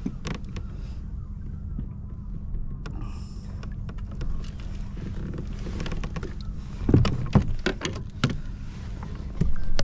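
Fishing gear being handled in a kayak: scattered clicks and knocks over a steady low rumble, with a cluster of louder thumps about seven to eight seconds in, as the trolling flasher is brought alongside and grabbed.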